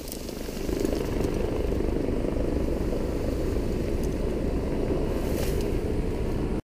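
Wind buffeting the microphone: a steady low rumble that cuts off abruptly near the end.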